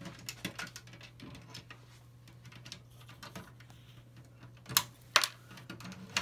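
Small clicks and taps of a hand on a glass terrarium's front frame and doors, then two sharp clicks close together near the end as the front doors are unlatched and opened.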